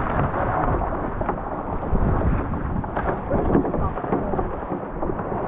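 Strong wind buffeting the microphone, mixed with water rushing and splashing against a Fireball sailing dinghy's hull in a heavy breeze. A dense, heavy noise with a deep rumble and scattered splashes.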